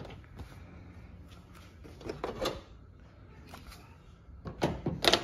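Covers being fitted back on by hand: a few knocks and clicks, one group about two seconds in and a louder cluster near the end.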